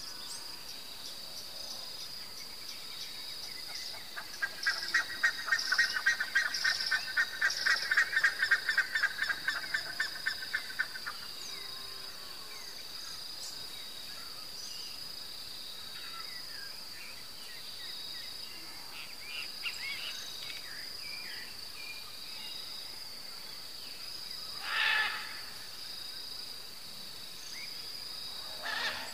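Outdoor ambience with a steady high-pitched insect drone throughout. From about four seconds in, a bird calls in a rapid series of repeated notes for about seven seconds. A brief louder call comes near the end.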